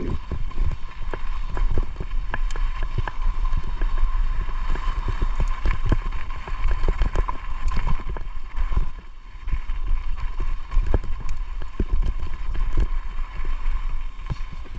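Mountain bike clattering over rough, rocky trail: irregular sharp knocks and rattles from the tyres, chain and frame over a low rumble of wind on the microphone.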